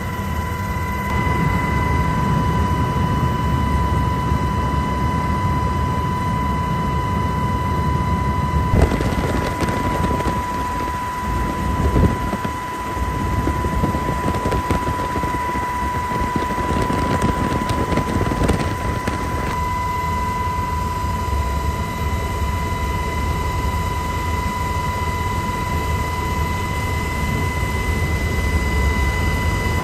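Aircraft noise heard from on board, most like a helicopter: a steady low rumble with a constant high whine over it. For about ten seconds in the middle it turns rougher and noisier.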